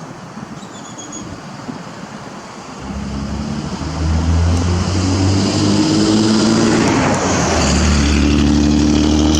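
A motor vehicle's engine running close by, a steady low hum that starts about three seconds in and gets louder a second later.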